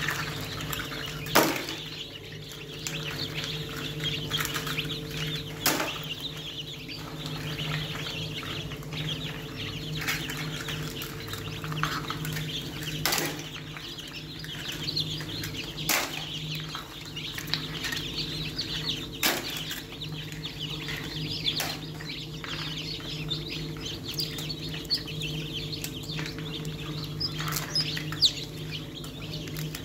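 Many newly hatched chicks peeping continuously in a dense high chorus over a steady low machine hum. Sharp knocks come every few seconds as they are handled in the wire hatching tray and plastic crate.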